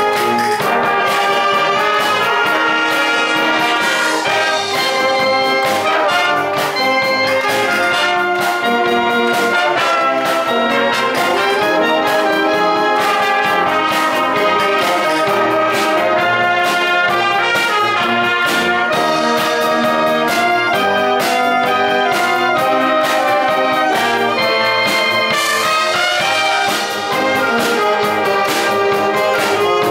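A wind band playing a piece, with brass to the fore over a steady beat.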